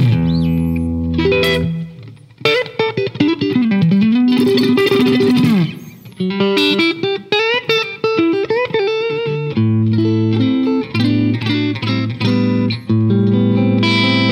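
Electric guitar, a Fender Stratocaster, played through a Fairfield Circuitry Accountant compressor pedal. Picked single-note lines with a string bend that dips and comes back up around four to five seconds in, then held chords struck again and again through the second half.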